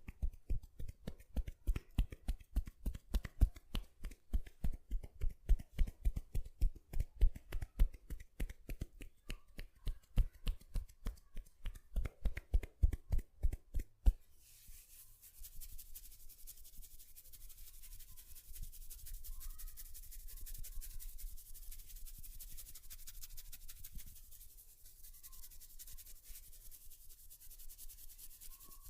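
Rapid, rhythmic hand tapping on a head during a head massage, several strikes a second. About halfway through it stops abruptly and gives way to a steady, soft rubbing hiss of hands working over hair and scalp.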